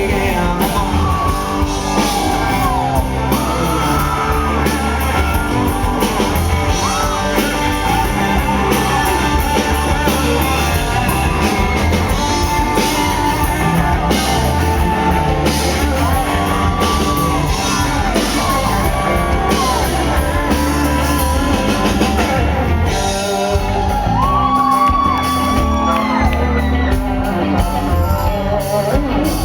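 Live country-rock band playing loudly in an instrumental break, with drums, bass and a lead line whose notes bend up and hold.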